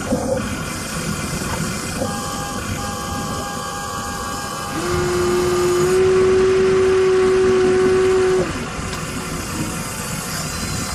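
Radio-controlled Huina excavator's electric motors and gearboxes whining steadily as it works. A louder steady tone comes in just before the middle and holds for almost four seconds before cutting off.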